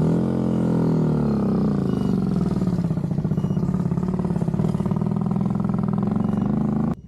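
Motorcycle engine running, its pitch falling over the first couple of seconds and then holding steady; it stops abruptly near the end.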